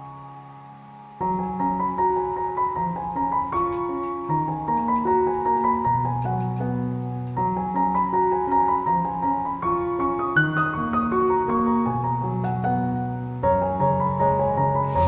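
Background piano music, soft for about the first second, then coming in fuller with a steady run of notes.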